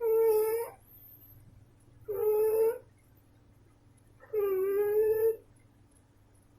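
A Neva Masquerade cat snoring: three breaths about two seconds apart, each carrying a steady pitched tone that lasts under a second.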